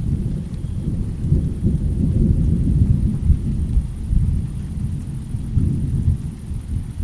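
Thunder rumbling low and rolling, swelling over a few seconds and swelling again briefly near the end.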